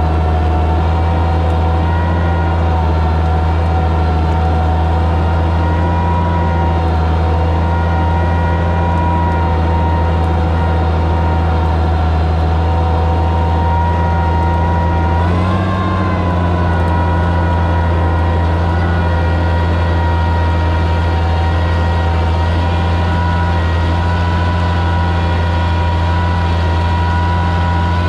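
Oliver 77 tractor engine running steadily under load while pulling a plow through the soil, its pitch rising briefly a little past halfway.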